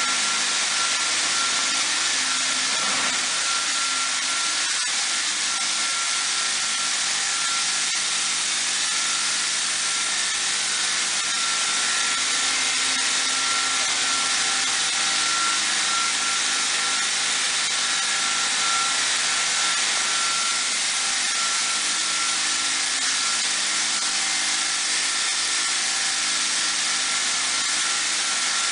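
MistMAXX 360 Hurricane XL sprayer running steadily: a constant rushing hiss of air and spray with a steady motor whine.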